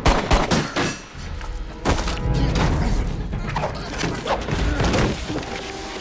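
Action-film fight sound effects: a quick run of sharp cracks at the start, then heavy blows and thuds of a brawl, over dramatic score music.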